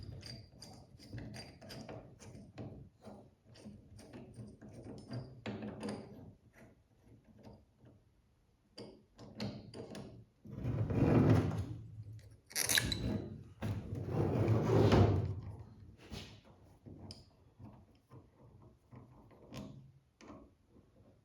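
Parts of a Wilwood brake pedal assembly being handled and fitted together by hand: scattered light clicks and knocks, with a few louder, noisier bursts about halfway through, one of them sharp and hissy.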